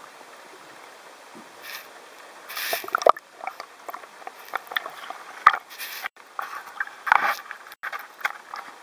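Water splashing and sloshing close to the microphone at the waterline, with irregular sharp clicks and knocks from about two and a half seconds in.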